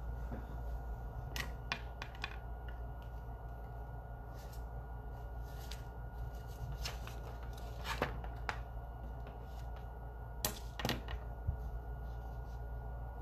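Scattered light clicks and taps, about a dozen at irregular intervals, over a steady low hum of room tone.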